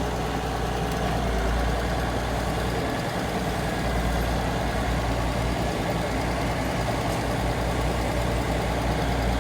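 Old Massey Ferguson tractor's diesel engine running steadily with a low hum.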